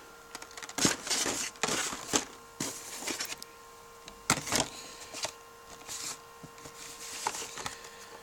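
Blister-carded die-cast toy cars being handled and pulled from a cardboard case: plastic and card crinkling and rustling in irregular bursts, with a few sharper clacks.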